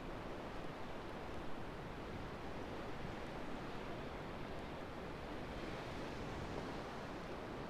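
Ocean waves washing steadily on the beach, an even hiss with low wind rumble on the microphone.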